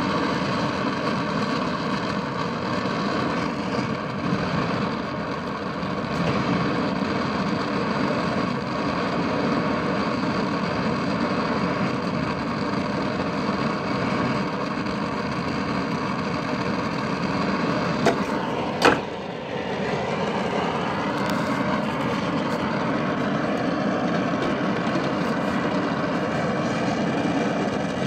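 Torch flame running steadily as it heats the brazed joints to unsweat the refrigerant lines from a refrigerator compressor. Two short sharp knocks a little after eighteen seconds in.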